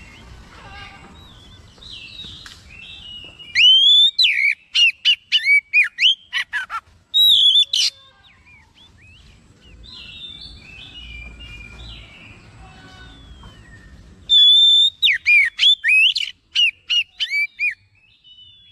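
Oriental magpie-robin singing: two loud bursts of quick whistled notes, each a rapid run of sweeping, mostly falling phrases, starting about four seconds in and again about fourteen seconds in, with softer twittering between them.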